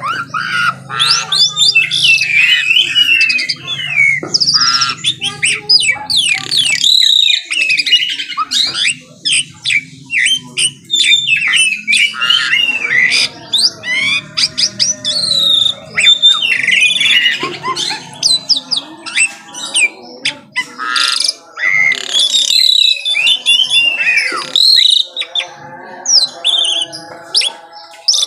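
Asian pied starling (jalak suren) singing loudly and continuously: a fast, varied run of sweeping whistles mixed with harsh squawks and chatter, with only brief pauses.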